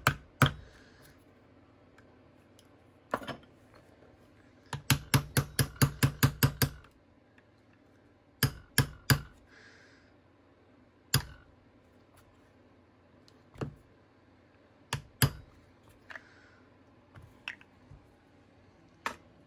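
Small brass hammer tapping a pin back into the frame of a CZ P-07 pistol: sharp metallic taps, some single and some in pairs, with a quick run of about ten taps around five seconds in.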